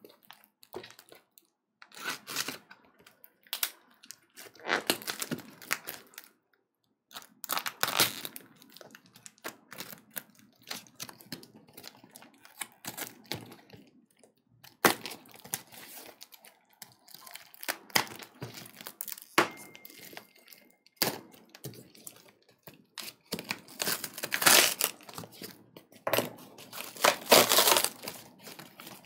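A cardboard box wrapped in packing tape being torn open by hand: tape ripping and cardboard crinkling and tearing in irregular bursts.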